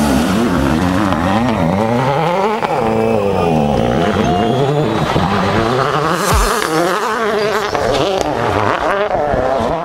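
Rally car engine revving hard as the car passes and pulls away, the revs climbing and falling again and again through gear changes.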